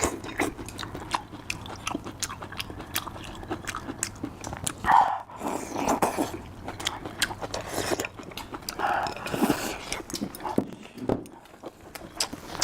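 A person biting and chewing food close to the microphone: many small crisp clicks and crunches, with a few brief mouth sounds in between.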